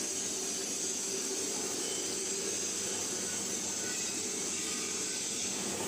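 Mini concrete mixer machine running: a steady mechanical noise with a constant hiss and an even hum, unchanging throughout.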